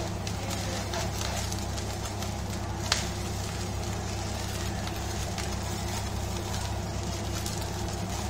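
Fried rice being stir-fried in a wok over a gas burner: a steady sizzle with light scraping and knocking of a wooden spatula against the pan, and one sharp tap of the spatula on the wok about three seconds in, over a steady low hum.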